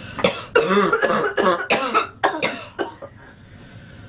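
A girl coughing in a rapid fit, about eight coughs in quick succession, dying away about three seconds in.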